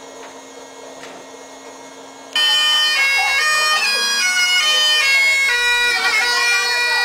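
A low room hum for about two seconds, then bagpipe music cuts in abruptly and loudly, a melody playing over a steady drone.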